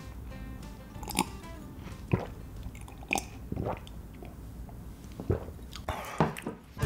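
Close-miked gulping as a person drinks from a glass, with several sharp swallows about a second apart.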